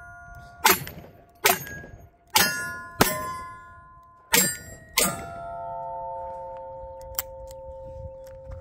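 Six revolver shots at a steady pace, each followed by the ring of a struck steel plate target. After the last shot the steel plates keep ringing for several seconds, with a few light clicks near the end.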